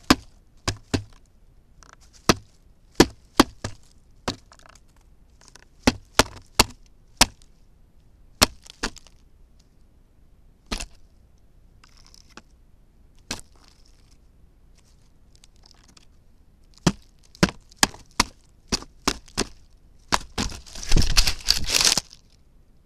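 Pileated woodpecker striking the trail camera with its bill: loud, irregular sharp knocks, single and in quick pairs. A dense scuffle of scraping and rustling against the camera comes about a second and a half before the end, as the bird covers the lens.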